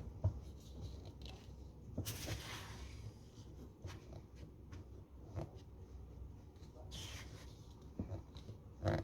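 Kitchen food-preparation sounds: scattered light knocks and taps of utensils and ingredients on a work surface, with two brief rustling swishes, about two seconds in and about seven seconds in.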